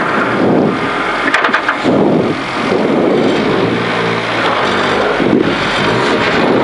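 Ford Fiesta Rally4's turbocharged three-cylinder engine running while the car waits at the stage start, heard from inside the cockpit. A few sharp clicks come about a second and a half in.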